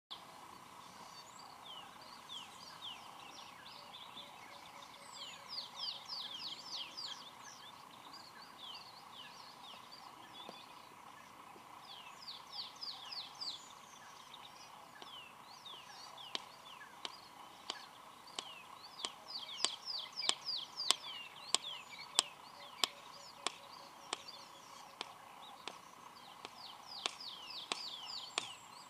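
Male red-crested korhaan clicking with its beak, the loud single clicks that open its courtship call. They begin about halfway through, come one or two a second and grow more frequent. Bursts of quick falling chirps from other birds come and go throughout.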